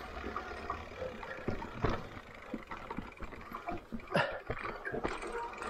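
Mountain bike rolling fast down a dirt forest trail: steady tyre noise with a scatter of sharp knocks and rattles from the bike over bumps, the loudest about two seconds in and again around four seconds.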